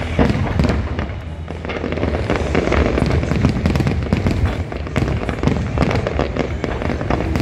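Aerial fireworks display bursting: a rapid, unbroken run of bangs and crackling.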